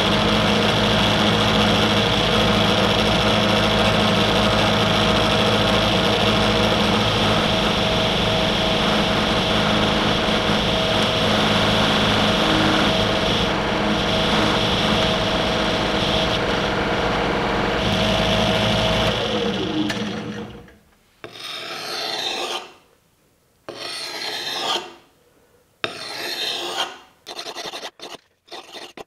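Drill press motor running a polishing cone while a steel cleaver blade is pressed against it for buffing. The motor winds down about two-thirds of the way in. Then the blade scrapes across a wet sharpening stone in a few long strokes with short pauses.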